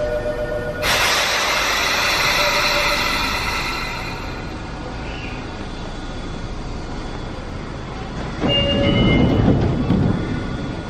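Sotetsu commuter train standing at the platform: a sudden hiss of released air about a second in, fading over about three seconds. Near the end a door chime sounds and the sliding doors close with a low rumble.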